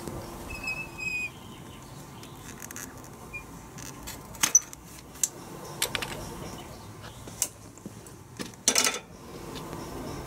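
Scattered sharp metallic clinks and knocks from metal tools and rod being handled at a steel work table, a second or two apart, with a quick cluster of them near the end. A short high squeak about half a second in.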